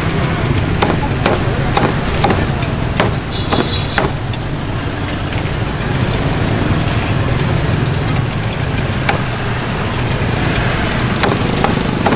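Heavy cleaver chopping roast duck on a thick wooden chopping block: sharp knocks at uneven intervals, several in the first few seconds, fewer through the middle and more near the end. A steady low rumble of street traffic runs underneath.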